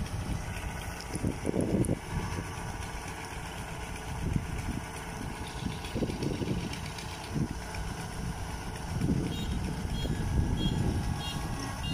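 Kubota DC-93 combine harvester's diesel engine running steadily, with gusts of wind buffeting the microphone.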